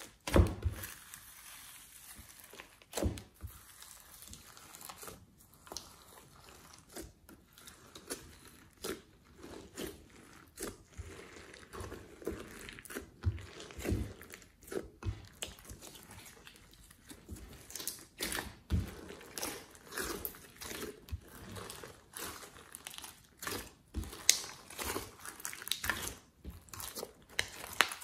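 Glossy slime being folded, squeezed and stretched by hand together with foam beads and clay: wet sticky squishing with irregular sharp pops and crackles.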